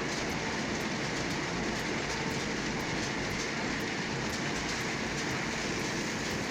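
Historic sawmill machinery running: a steady mechanical clatter and rumble with no pauses.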